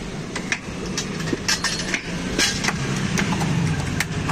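Hard raw mangoes knocking into a steel bowl as they are picked out by hand, a string of short sharp clacks, over a steady engine hum from an idling vehicle.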